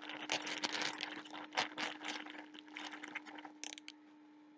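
Clear plastic zip-top bag crinkling and rustling as it is handled, a rapid irregular crackle that stops about four seconds in. A faint steady hum runs underneath.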